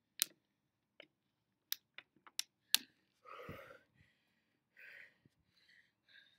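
A plastic water bottle crackling and clicking sharply as it is handled and capped, about seven quick clicks in the first three seconds. Then two short breathy exhales as the body shifts onto hands and knees on the mat.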